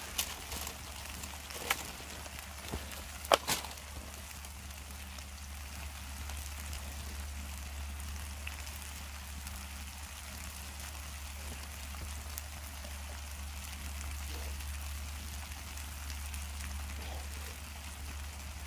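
Noodles sizzling in a hot pan over campfire coals, a steady crackling hiss, with a few sharp clicks in the first few seconds, the loudest about three and a half seconds in.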